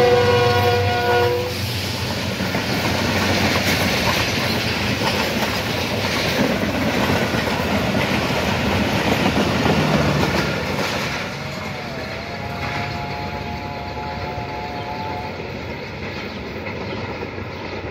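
Pakistan Railways passenger train, the Sabak Kharam Express, running past close by. The locomotive's horn sounds a chord and cuts off about a second and a half in. The coaches then roll past with wheels clacking over the rail joints, fading after about eleven seconds as the train moves away.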